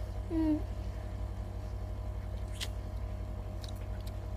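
A steady low hum, with a brief hummed 'mm' from a girl about half a second in and a single wet mouth click about two and a half seconds in, as lemon wedges are chewed.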